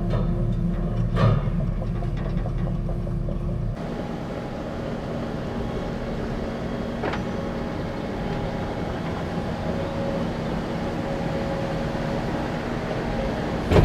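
A vehicle engine running steadily. About four seconds in, it cuts abruptly to a different steady engine drone.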